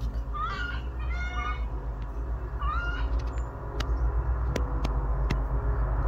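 A dog whining in three short, high-pitched, rising calls in the first three seconds, with a few sharp clicks later and a steady low rumble underneath.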